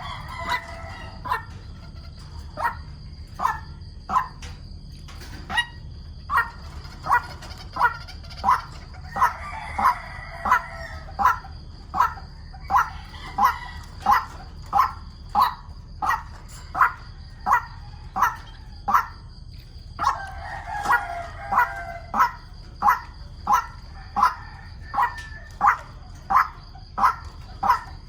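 White-breasted waterhen calls: a short harsh call repeated about one and a half times a second, with several bouts of denser, overlapping calling. A faint steady high whine runs underneath.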